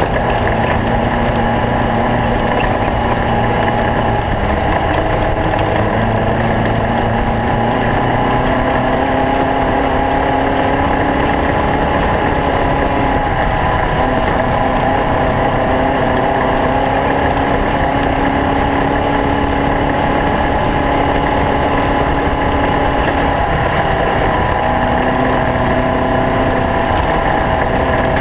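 Engine of a stock 2018 Snore Knotty Pine 250 running steadily under way, its note wavering and shifting in pitch a few times.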